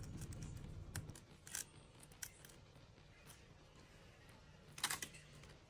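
Short scrapes and clicks of a pry tool working along the adhesive-glued edge of a Surface Pro 7's display to separate the screen from the body. The scrapes are scattered and faint, with the loudest cluster about five seconds in.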